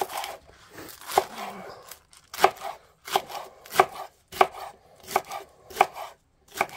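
Kitchen knife chopping spring onions on a cutting board: about nine sharp strokes, roughly one every two-thirds of a second in the second half.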